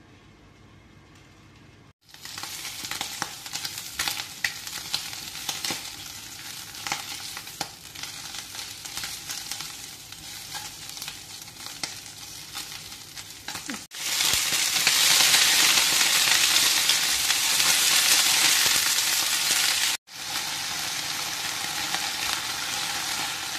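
Chinese sausage slices sizzling and crackling in a hot nonstick frying pan, stirred with a spatula, with many small pops. From about 14 s in, a louder, steady sizzle hiss; near the end, snow peas and sausage sizzle more evenly as they are stir-fried together.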